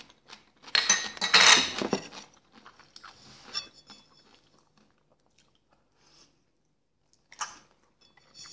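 Close-up eating sounds: a loud crunching mouthful about a second in, then soft chewing with small clicks, and a fork clinking on a plate near the end.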